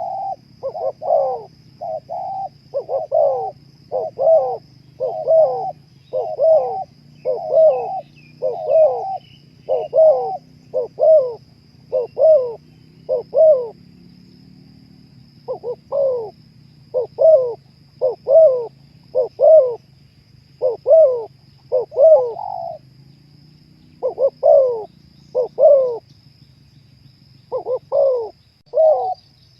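Spotted dove cooing: a long series of short coos, about one every 0.7 seconds, breaking off briefly a few times before resuming.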